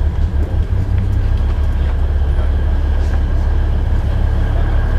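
DL-41 diesel locomotive running with its train along the narrow-gauge mountain line: a steady, heavy low rumble of engine and wheels, with a few faint clicks.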